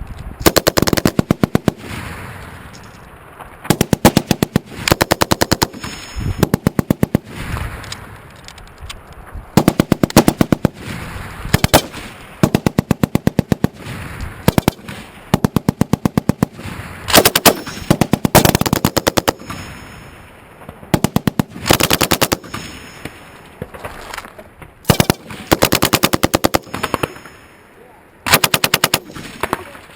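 M240B medium machine gun firing 7.62x51 rounds in short bursts of several shots each, at roughly ten rounds a second. The bursts repeat every second or two, each followed by an echo.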